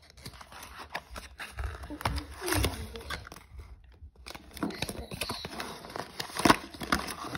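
A small cardboard Ty Mini Boos blind box being opened by hand: the card flaps pulled back and handled, crinkling and rustling with scattered small clicks and tears.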